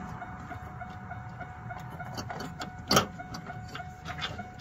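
Clicks and a knock from hands working a pop-up headlight motor and its fittings under the hood, the loudest about three seconds in. A faint, evenly pulsing tone runs underneath.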